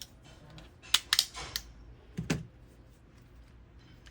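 A handful of sharp clicks and a short scrape from hand-work on a Jeep TJ Wrangler's metal door latch as it is cleaned out and worked.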